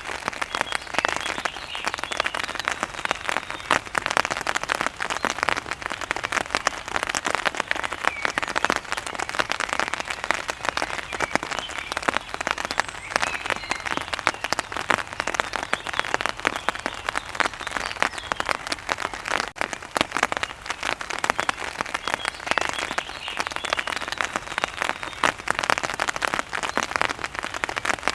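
Steady heavy rain falling on a hard surface: a dense, even patter of countless drops with no let-up.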